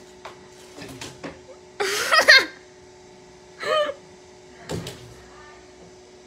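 Light knocks and bumps as a cat paws and jumps at a wooden door and its frame, with two short pitched cries in between, the louder about two seconds in.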